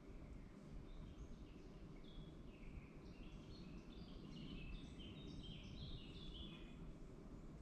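A songbird sings a quick run of short notes at varied pitches in the middle, over a faint steady low rumble of woodland background.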